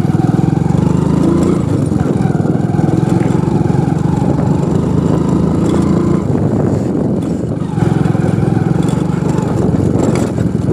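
Hero Splendor motorcycle's single-cylinder four-stroke engine running under throttle on a rough dirt track, heard from on the bike. The engine note drops about six seconds in as the throttle eases, then picks up again a second or so later.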